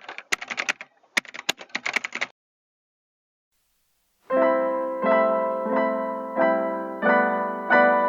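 Background piano music, chords struck at a steady pace, starting about four seconds in after a short silence. It is preceded by about two seconds of irregular crackling with sharp clicks.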